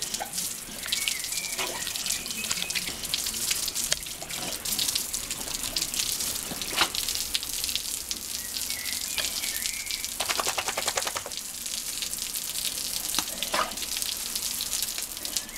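Water from a garden hose spraying and splashing onto wet patio paving: a steady hiss, with a few brief sharper sounds over it.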